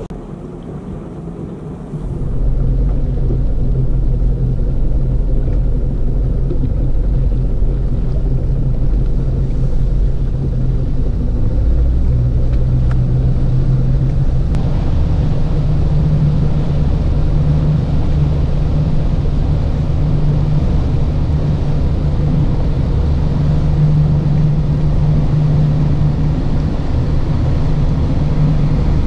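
Small motorboat's engine running under way, a steady low hum with several fixed tones; it picks up about two seconds in and grows louder and rougher about halfway through.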